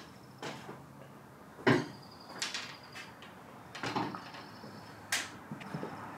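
Gear being handled and loaded into a boat on its trailer: four separate knocks and clunks, the loudest a little under two seconds in.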